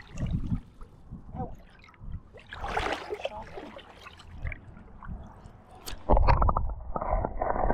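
Shallow brook water sloshing and splashing as someone wades through it. About six seconds in, a sudden louder low rumble sets in.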